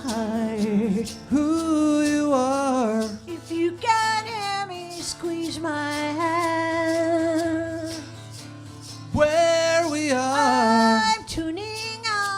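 Live song: a singer holds long notes with vibrato, gliding from one to the next, over guitar accompaniment.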